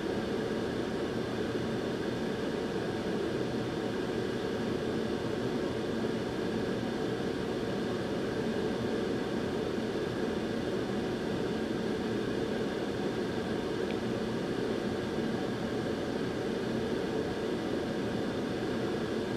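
Steady blowing of a hot-air rework station as it heats the solder balls on a GPU memory chip during reballing, the balls reflowing onto their pads.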